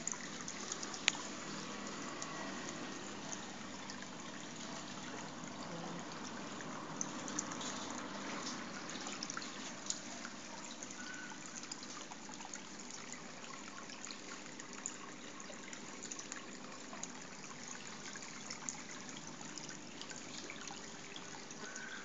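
Steady trickling water, with scattered small clicks and a couple of brief faint high notes.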